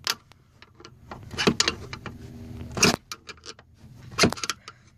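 A flathead screwdriver levering at a Chevy S10's lower door hinge pin: scattered metal clinks and three sharp knocks about a second and a half apart.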